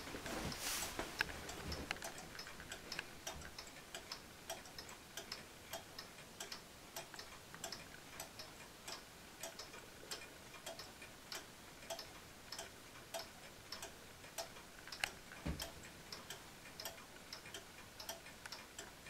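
Chain-driven wall clock ticking steadily, with one dull knock about fifteen seconds in.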